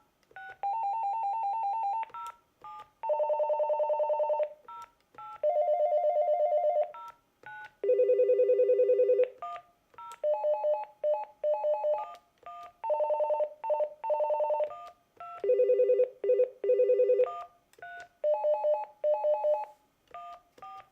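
Electronic ringer of an LG LDP9008 digital desk phone playing through its built-in ringtones in turn. Each is a short key beep followed by a second or two of fast electronic warble. About eight different tones are heard, each with its own pitch and rhythm, some steady trills and some broken into short rings.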